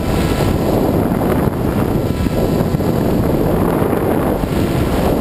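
Heavy wind noise rushing over an RC plane's onboard camera microphone, with a faint steady whine underneath.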